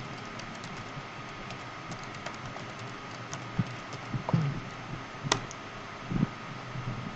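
Typing on a computer keyboard: a run of light key clicks, then one sharper, louder key stroke about five seconds in as the command is entered. A faint steady hum lies underneath.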